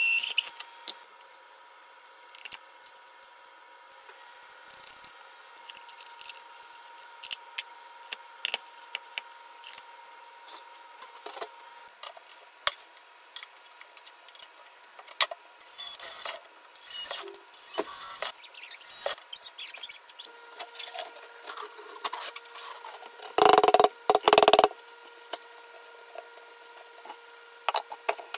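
Workshop sounds of tools and parts being handled: scattered clicks and taps and a few short scrapes over a faint steady hum, with two louder short bursts of noise near the end.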